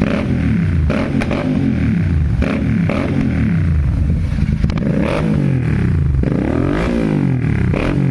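Royal Enfield Continental GT 650 parallel-twin revved repeatedly through AEW 103 aftermarket silencers with the dB killers removed. The engine note rises and falls with each throttle blip, with a deep bass note and sharp crackles and pops from the exhaust as the revs drop.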